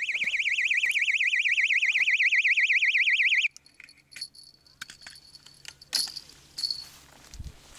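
Electronic carp bite alarm sounding a loud, fast-warbling high tone for about three and a half seconds, then cutting off abruptly. Faint clicks and rustling follow.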